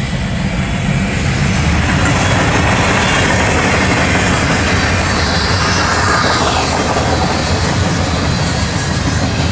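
Mixed freight train's cars rolling past, a steady loud noise of wheels on the rails, with a faint falling whine around the middle.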